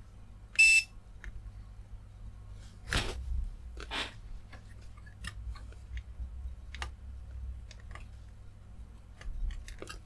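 A short, loud electronic beep about half a second in, then a couple of knocks and scattered light clicks from a circuit board being handled while a capacitor is desoldered, over a low steady hum.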